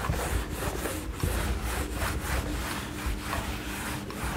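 A whiteboard being wiped clean by hand, with quick, even back-and-forth rubbing strokes.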